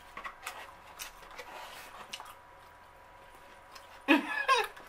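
Quiet chewing of takeout food, with small mouth and fork clicks. About four seconds in there is a brief, louder closed-mouth hum from the eater.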